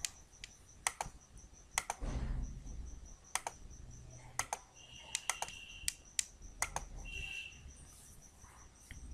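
Computer mouse clicking, a dozen or so sharp single and double clicks spread irregularly, while the Paint fill tool is used. A faint, even, high-pitched pulsing runs underneath.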